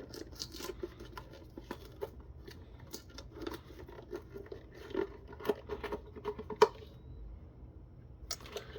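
Scattered small clicks, scrapes and tearing rustles as a tweeter is pried and pulled out of its foam and adhesive mounting in a plastic speaker housing, with one sharper click about six and a half seconds in.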